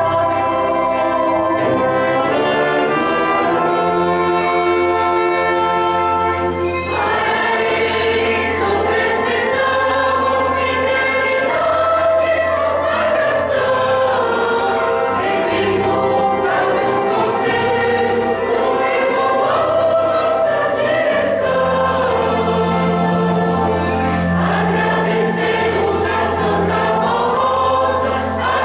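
A mixed church choir singing a Portuguese-language hymn, accompanied by a small ensemble of violin and brass. It opens on long held chords, and about seven seconds in the singing moves into a flowing melody.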